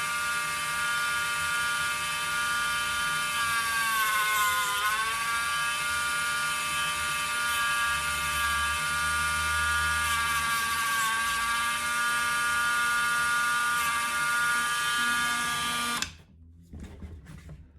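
Small high-speed electric tool motor running with a steady whine. It dips in pitch twice as it bogs under load while cutting, then stops suddenly about 16 seconds in.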